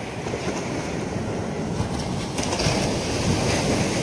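Surf washing onto the beach: a steady rushing noise that swells a little from about halfway through.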